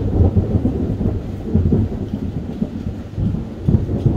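Thunder rolling: a long, loud, low rumble that follows a sudden clap just before, and swells again near the end.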